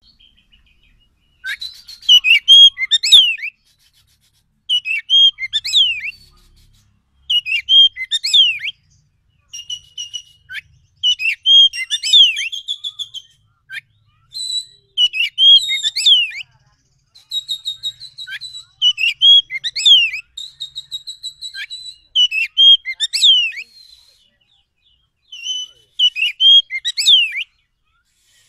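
Oriental magpie-robin (kacer) singing in repeated phrases of sweet whistles and quick sliding notes, each a second or two long, about nine phrases with short pauses between them.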